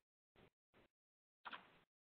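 Near silence, with a faint brief sound about one and a half seconds in.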